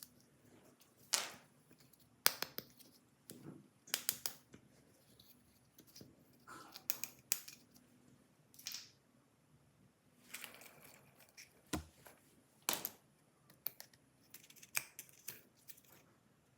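Irregular sharp snips and clicks, with short stretches of rustling and scraping between them, as small hand tools work on plastic toy parts.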